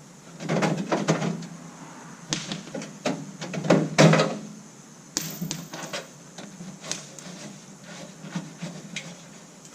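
Irregular knocks, clicks and scrapes from handling metal parts and tools, with the loudest clunks about half a second in and about four seconds in.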